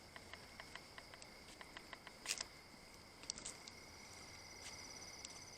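Night insects chirping steadily in two high tones, with a fast pulsing trill joining about two thirds of the way in. A few faint clicks and crackles are scattered through it.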